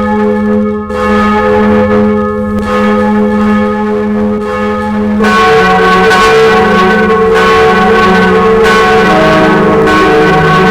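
Large church bells ringing: one bell sounding with a long, steady hum, joined about five seconds in by further bells into a fuller, louder peal.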